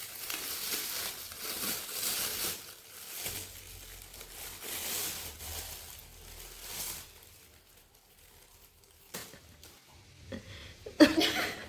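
Crinkling and rustling of a plastic packet as cornstarch is added to marinating pork, irregular for about seven seconds, then dying away. A sudden louder sound comes near the end.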